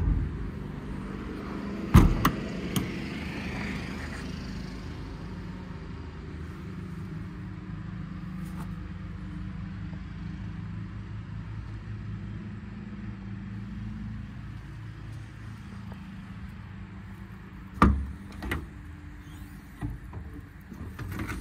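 Metal compartment doors on a truck service body being shut with a slam at the start and again about two seconds in, and clunking open near the end. Between them runs a steady low hum.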